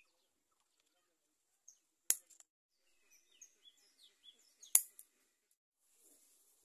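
Scissors snipping through leaf stems: two sharp snips, one about two seconds in and a louder one near five seconds. Small birds chirp faintly in between.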